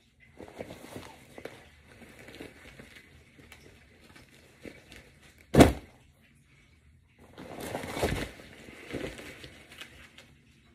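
Nylon and fabric rustling as a weighted vest is handled and pulled out of a gym bag, in several bursts. One sharp knock about halfway through is the loudest sound.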